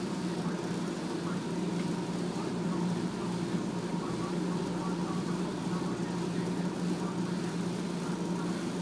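Steady low mechanical hum of laundromat dryers running.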